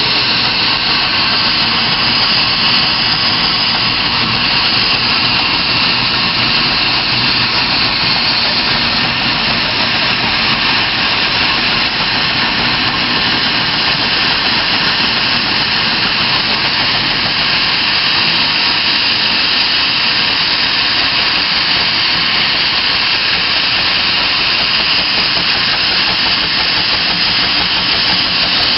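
Steam traction engines working hard against a 100-ton load, with a loud, steady hiss of steam.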